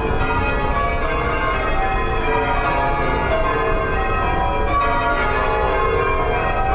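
Church bells of St Paul's Cathedral being change-rung: many bells struck one after another in shifting sequences, their tones overlapping and ringing on, over a low steady rumble.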